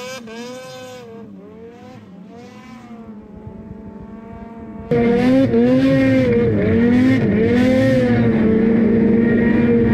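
Ski-Doo snowmobile engine running hard as the sled skims across open river water, its pitch wavering up and down. Fainter for the first five seconds, then suddenly much louder and closer.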